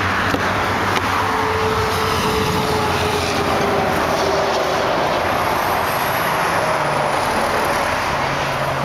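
Steady roar of highway traffic. A light click about a second in as the truck's door latch is released.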